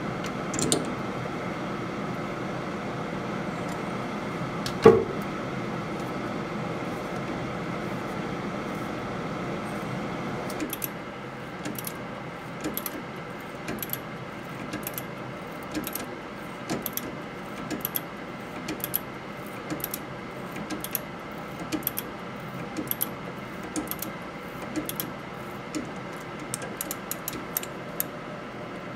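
Hand tapping a thread in steel with a T-handle tap wrench: metallic clicking from the wrench, about one or two clicks a second, often in pairs, starting about a third of the way in. Before that there is a steady hum with a single loud metal clank about five seconds in.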